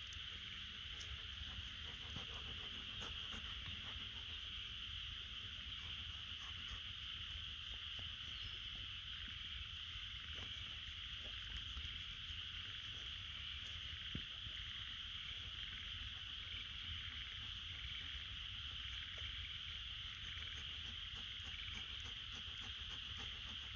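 Steady high-pitched chorus of insects, unbroken and even throughout, with a low rumble underneath.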